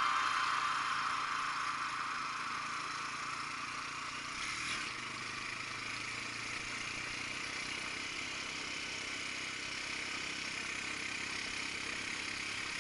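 Quad bike (ATV) engine running steadily under way, with riding noise, at a low, even level.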